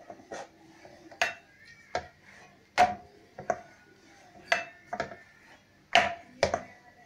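Stainless-steel rolling pin rolling chapati dough on a steel rolling board, clinking and knocking against the metal about nine times, irregularly, roughly once a second.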